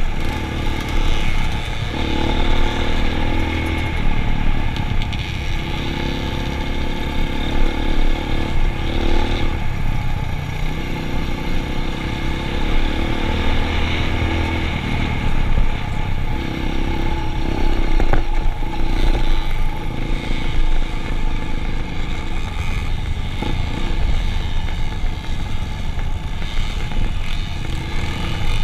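Motorcycle engines running, their note coming and going over a steady rumble, with occasional clatter.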